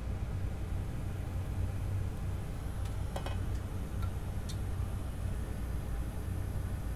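A fan running steadily, a low hum with a hiss over it, and a few faint light ticks between about three and four and a half seconds in.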